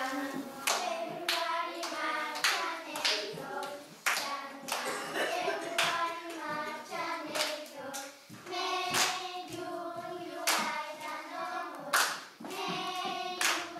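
A group of children singing a song together, with regular hand claps keeping time.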